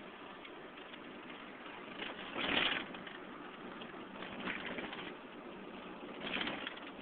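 Steady road and engine noise inside a moving car's cabin, with three louder swells of noise, the biggest about two and a half seconds in.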